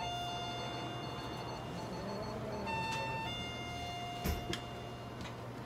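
Steady electronic tone from a light-therapy unit during irradiation: a lower tone that steps up to a higher one about two and a half seconds in, drops back half a second later, and stops about a second before the end. A soft knock comes just before it stops.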